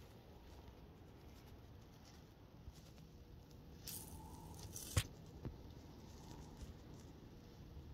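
Faint crunching and rustling of dry fallen leaves as a black bear walks and roots through the leaf litter, with one sharp click about five seconds in and a smaller one just after.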